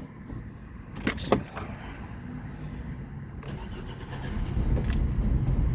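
A 2005 Nissan Altima's four-cylinder engine, with only one ignition coil connected, fails to start. There is a couple of sharp clicks from the key and ignition about a second in, then a steady low rumbling that grows louder near the end as the engine turns over without running.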